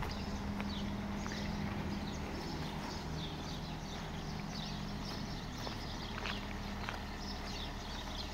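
Outdoor ambience: small birds chirping over and over, with short falling chirps, over a steady low hum, with a few faint clicks.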